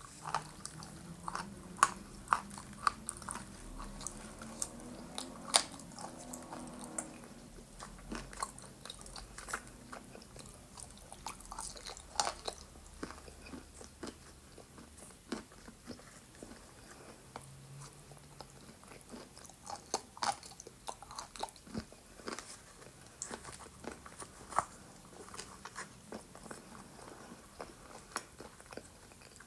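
Close biting and chewing of dry yellow Ural clay chips coated in a paste of blue Uzbek clay: sharp, irregular crunches with short pauses between bites.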